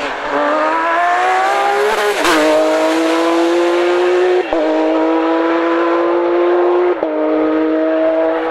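Porsche 911 GT3 rally car's flat-six engine at full throttle: rising in pitch over the first two seconds, then shifting up about two seconds in with a sharp crack, and shifting again about four and a half and seven seconds in. Loud throughout.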